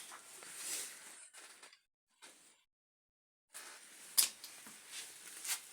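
Faint handling noise and rustling, broken by two short gaps of dead silence, then a few sharp clicks and knocks, the loudest about four seconds in.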